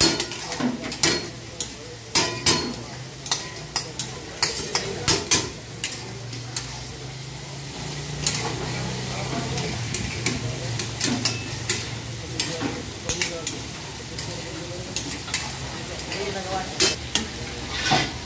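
Long metal ladles and tongs scraping and clanking repeatedly against metal karahi woks as chicken karahi is stirred, over a steady sizzle of frying.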